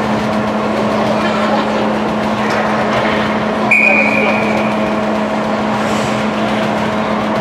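Indoor ice rink ambience during a hockey game: a steady low hum under skating noise and indistinct voices, with one short referee's whistle blast about four seconds in.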